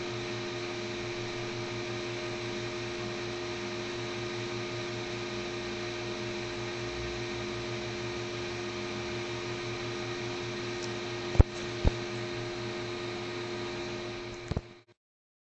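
Steady hum and hiss with several fixed tones, broken near the end by two sharp clicks half a second apart and a third click, then cutting off suddenly.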